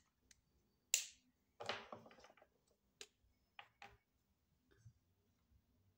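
A few sharp plastic clicks and a short clatter of felt-tip markers being handled off-screen, caps clicking off and on as one marker is put down and another taken up.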